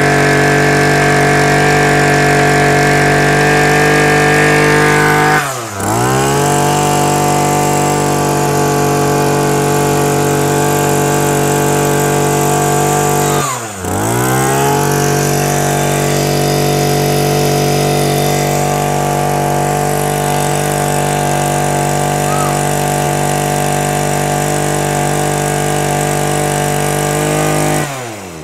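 Small brush cutter engine running steadily. Twice its speed drops sharply almost to a stop and picks straight back up, and near the end it winds down and stops.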